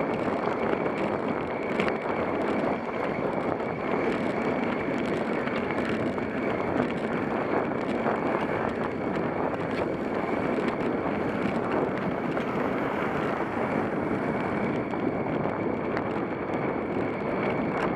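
Steady wind rush over the microphone of a camera mounted on a bicycle moving along a paved road at cycling speed.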